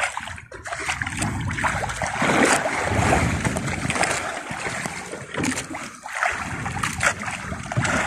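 Choppy sea sloshing and splashing against a small outrigger boat's hull and float, in uneven surges, with wind buffeting the microphone.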